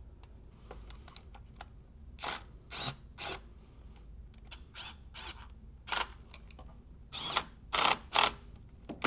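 Socket ratchet clicking in short bursts as the thermostat housing bolts are run in by hand, about seven bursts with the loudest near the end.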